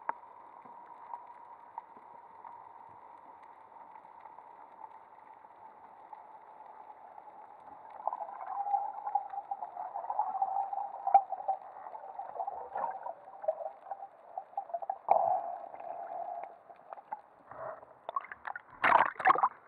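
Underwater sound heard through a camera's waterproof housing: a faint, steady muffled hiss with a thin hum. Partway through, louder uneven rushing and gurgling of water starts as the breath-hold diver swims up. Near the end a few loud, sharp splashing bursts come as he reaches the surface.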